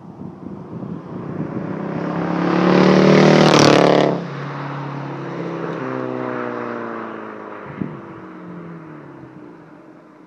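VW GTI 2.0T with a turbo-back exhaust driving past: the exhaust note grows louder as the car approaches, peaks about four seconds in, drops in pitch as it passes, and fades away. A short sharp pop comes near the end. The exhaust sound is altered by misfires on ignition coils 2 and 4.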